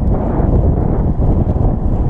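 Steady, loud wind buffeting the microphone, a dense low rumble.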